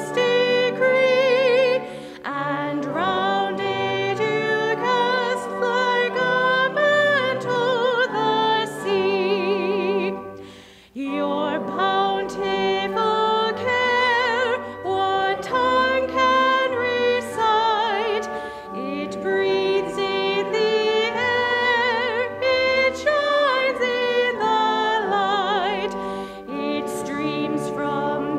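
A woman singing a slow sacred song with strong vibrato over sustained instrumental accompaniment, with a short pause between phrases about ten seconds in.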